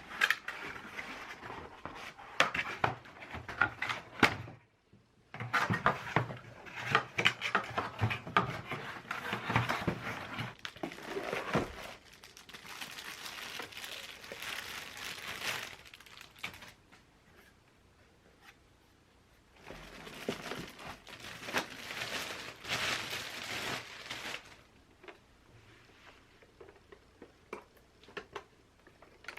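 Crinkling and rustling of packaging being handled, with light clicks and tearing, in several bursts separated by quiet pauses.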